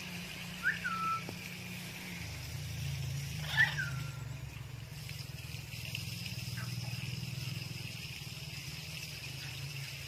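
Short calls from a white ring-necked parakeet: two quick notes about three seconds apart, each rising and then falling in pitch, with a fainter one later. Under them runs a steady low hum.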